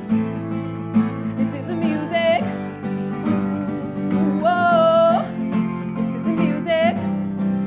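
Strummed acoustic guitar with a singer's wordless held notes, three of them, with vibrato; the longest comes about halfway through.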